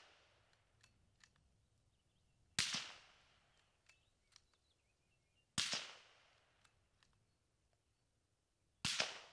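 Three suppressed 6.5 Creedmoor rifle shots about three seconds apart, each a sharp crack with a short fading tail. They are fired through an AB Suppressors Raptor suppressor in its reflex configuration, mounted back over the barrel.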